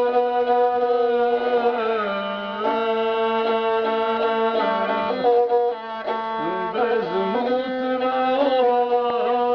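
A man singing to his own gusle, the single-string bowed folk instrument with a skin-covered body, the bowed line holding long notes under the voice.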